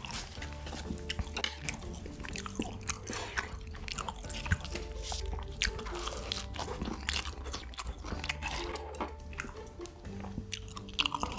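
Close-miked eating: repeated bites and chewing with many short crisp crunches and mouth clicks, over background music with long held notes.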